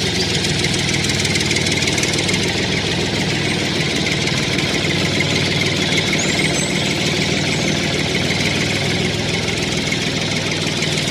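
Tractor engine running steadily at an even pace.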